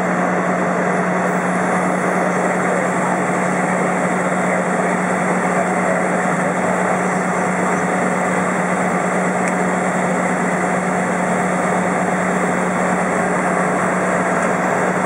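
Single-engine Cessna's engine and propeller running steadily at idle on the ground before departure, heard from inside the cabin as an even, unchanging low drone.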